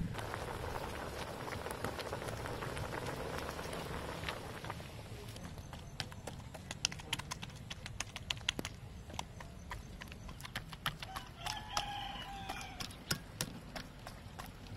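Water sloshing as a slab of raw pork belly is rubbed and washed by hand in a wok, then many rapid sharp clicks of a fork pricking the pork skin, its tines tapping the metal tray beneath. A brief animal call sounds in the background near the end.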